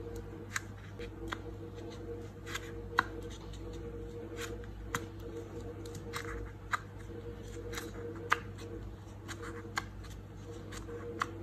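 Paper being handled for a craft: irregular sharp clicks and light rustling, roughly one or two a second, over a steady low hum.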